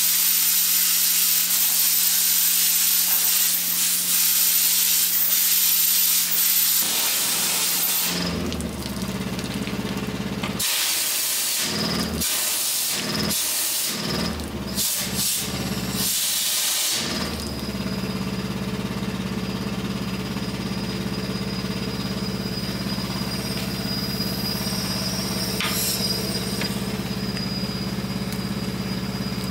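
Loud steady hiss of a high-pressure jet clearing out the boiler, then cut on and off in short bursts, then giving way about halfway through to a motor running steadily with a faint high whine.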